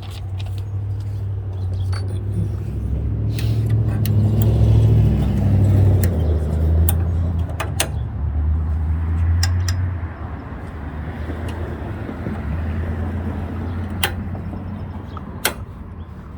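A low steady rumble, like an engine running nearby, swelling a few seconds in and easing off after about ten seconds, with a few sharp plastic clicks as the chute detent piece is worked between the snow blower's chute gears.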